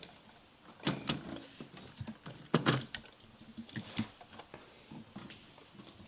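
Scattered clicks and knocks of plastic LEGO pieces being handled and moved, a few sharper knocks among lighter taps.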